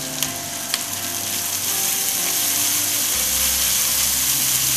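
Ground spice paste sizzling in hot oil in a wok while a silicone spatula stirs and scrapes it, with two light clicks of the spatula against the pan in the first second. The hiss grows a little louder as the stirring goes on, and a low hum comes in about three seconds in.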